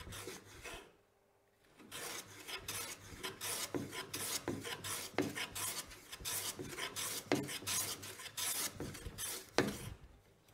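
Metal hand plane with a freshly sharpened iron taking a run of quick, short strokes across rough-sawn ash, cutting shavings on each pass. The strokes start about two seconds in, with one sharper knock near the end.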